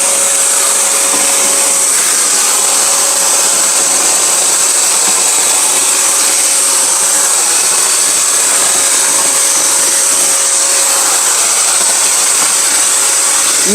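JT Max wet/dry canister vacuum cleaner running steadily while sucking up scraps of tissue paper: a loud rushing hiss with a steady whine from the motor.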